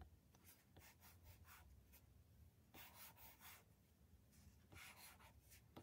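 Faint scratching and light tapping of an Apple Pencil tip drawing strokes on an iPad's glass screen, with a few soft taps and then two short runs of strokes about three and five seconds in.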